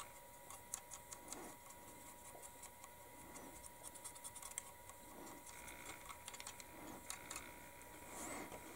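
Faint, scattered small clicks and light scratching as a plastic scale model is handled and a small paint brush works weathering pigment over its surface, over a faint steady tone.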